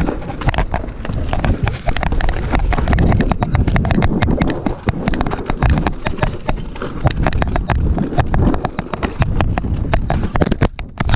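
Mountain bike descending a rocky downhill trail: a dense, continuous clatter of tyres, chain and frame knocking over rocks, over a low rumble of wind on the camera's microphone.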